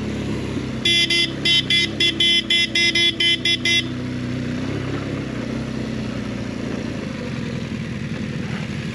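A motorcycle horn tooted about a dozen times in quick succession, from about one second in to about four seconds in. Under it runs the steady, low-revving BMW R 1200 GS boxer-twin engine, held back in limp mode and ridden very slowly.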